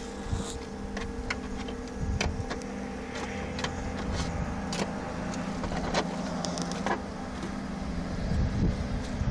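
A steady low mechanical hum holding a few constant tones, over a rumble, with scattered short clicks and crackles throughout.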